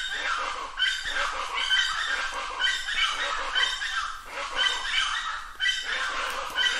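Plain chachalaca (Ortalis vetula) calling over and over, a steady run of repeated calls coming about once a second.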